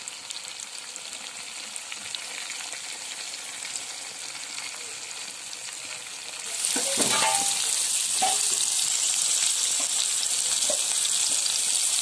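Marinated chicken pieces deep-frying in hot oil in a pan: a steady sizzle with scattered crackles. About six and a half seconds in, the sizzle grows suddenly much louder and fiercer.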